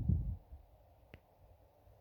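Low rumble on the microphone, such as wind buffeting or handling, dying away about half a second in, then a single faint click a little after the middle over quiet outdoor background.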